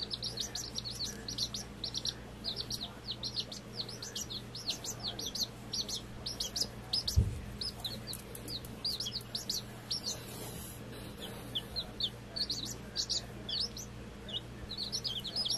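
A brood of week-old chicks peeping, a dense stream of short, high chirps that fall in pitch, with a short lull about ten seconds in. A single low thump about seven seconds in.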